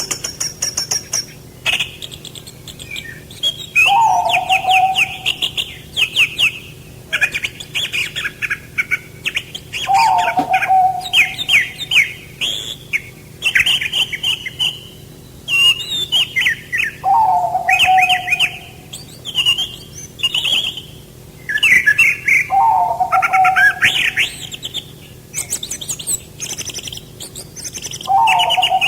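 A songbird singing the same phrase over and over, about every three seconds: a low slurred note followed by a rapid run of high trilled notes.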